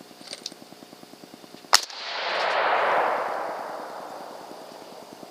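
A single gunshot about two seconds in, a sharp crack followed by a long rolling echo that swells and then dies away over a few seconds. A faint, fast, even ticking runs underneath.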